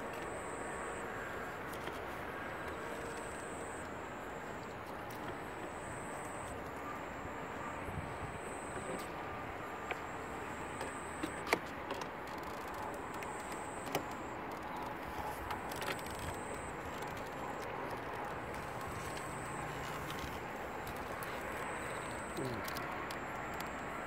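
Riverside night ambience: a steady distant rumble under a high, thin insect trill that comes and goes about once a second, with a few faint clicks near the middle.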